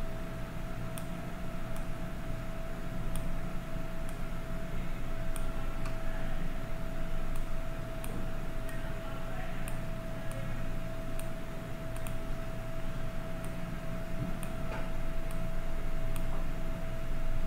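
Room tone: a steady low hum with a faint constant whine, and faint light ticks about once a second.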